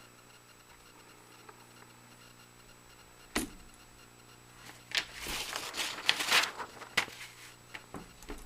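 Handling noises: a sharp knock, then a couple of seconds of rustling and scraping, and a few clicks near the end.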